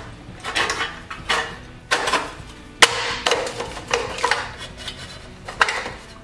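Rusty sheet-metal blower housing of an old Briggs & Stratton engine being worked into place by hand: a series of metal clanks, rattles and scrapes, with one sharp knock about three seconds in.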